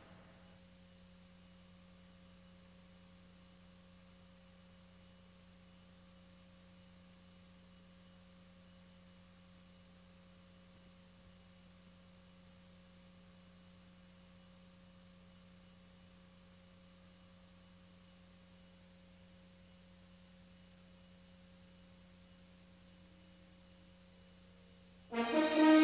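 Near silence with a faint, steady electrical hum from the VHS playback. Near the end an orchestral fanfare with brass starts suddenly.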